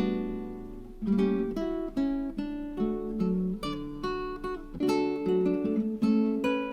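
Background music: an acoustic guitar picking single notes and chords that ring out, with one note left to ring down over the first second.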